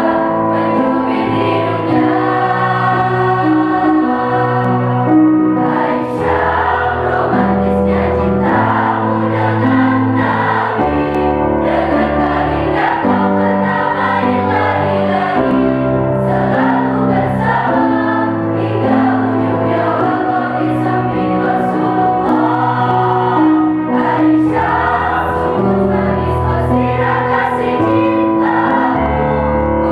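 A mixed choir of women's and men's voices singing in harmony, several parts moving together through long held notes.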